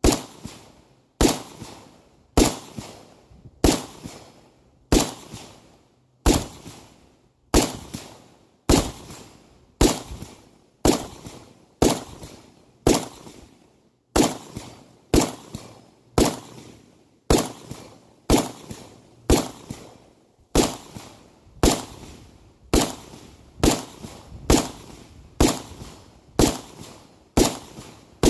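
Plastikov v4, a homemade 3D-printed AK-pattern rifle, firing single shots in slow, steady semi-automatic fire, a little over one shot a second. Each report trails off before the next.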